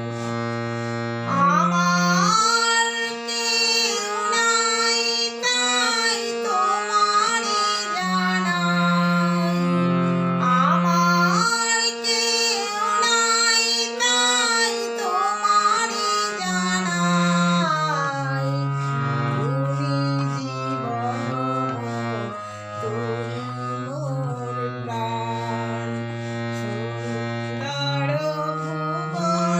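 A woman singing a song and accompanying herself on a harmonium: held harmonium notes and chords under her sung melody, with the voice coming in about a second and a half in.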